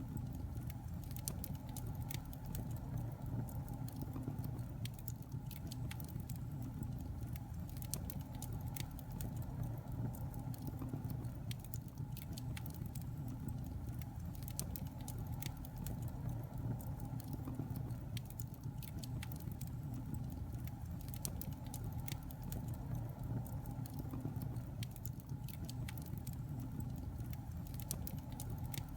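Wood fire burning in a fireplace, with a steady low rumble of flames and frequent irregular crackles and pops.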